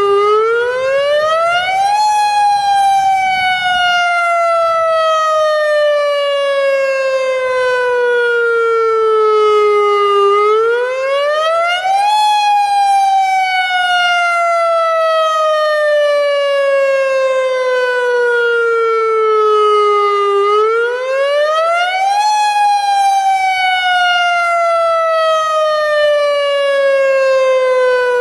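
Federal Signal Modulator electronic tsunami warning siren of the AHAB system sounding its wail tone, the signal used in a real tsunami emergency. The pitch rises quickly for about two seconds and then falls slowly for about eight, over and over, three rises in all.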